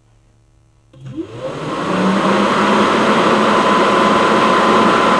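Electric auxiliary radiator fan switching on about a second in: a rising whine as the motor spins up, then a loud, steady rush of air with a motor hum. On this first test it is blowing the wrong way, pulling instead of pushing as a pusher fan should.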